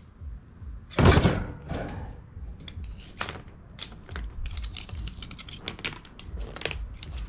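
Hot stones and burning embers in an umu fire pit being stirred with a stick, giving many quick, irregular clicks and crackles. One loud noise about a second in stands out above the rest.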